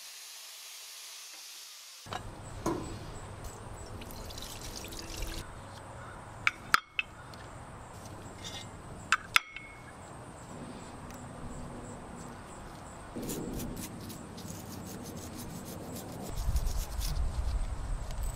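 Small metal mixer gears being washed in a shallow pan of cleaning liquid: liquid splashing and dripping, and a toothbrush scrubbing grease off the gears, with a few sharp clicks of metal parts. A steady hiss fills the first two seconds, and a low rumble comes in near the end.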